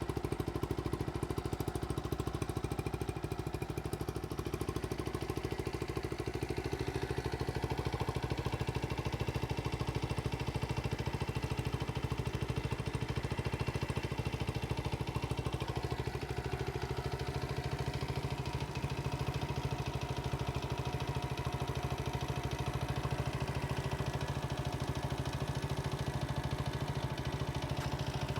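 1970 Honda CT70H's small single-cylinder four-stroke engine idling steadily.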